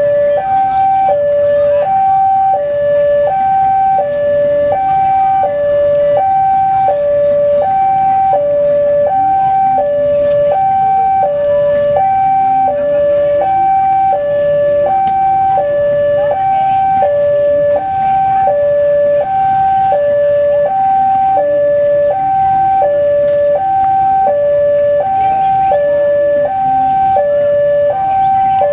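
Railway level-crossing warning alarm sounding a steady two-tone alternation, high then low, about once a second: the signal that a train is approaching the crossing. Street and market noise runs underneath.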